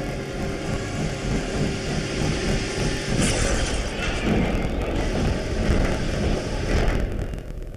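Film soundtrack of a steam train in motion: a dense rumble and rattle that swells from about three seconds in, with sharp noisy bursts, and eases off just before the end.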